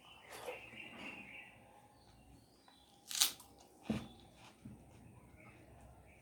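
A person chewing food close to the microphone, with two sharp crunches a little over three and about four seconds in.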